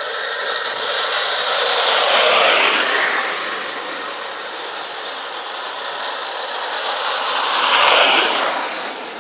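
Home-built wooden race carts (carruzzuni) rolling downhill on asphalt, giving a grinding rattle. Two carts pass, one about two seconds in and a louder one about eight seconds in, each rising and then falling away.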